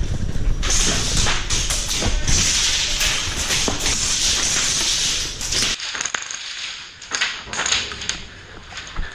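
Airsoft minigun firing a long continuous burst, a dense hissing rush that cuts off abruptly about six seconds in, followed by scattered sharp taps.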